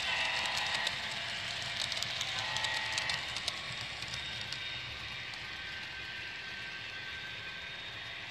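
HO scale model freight cars rolling along the track, their wheels clicking quickly over rail joints and turnouts for a couple of seconds, with a steady running hum that slowly fades as the train moves away.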